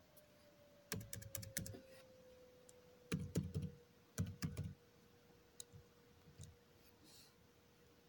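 Typing on a computer keyboard: three short bursts of keystrokes about one, three and four seconds in, then a couple of single taps, as a word is typed into a text document. A faint steady hum sits underneath.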